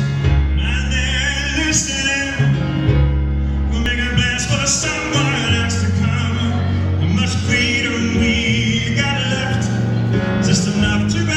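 Live pop song played in a strings arrangement: held string chords over sustained bass notes, with a man singing.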